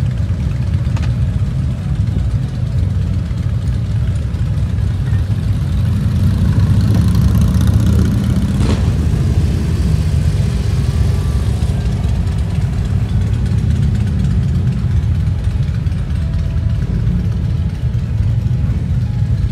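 A vehicle's engine droning steadily, a loud low rumble with no speech over it.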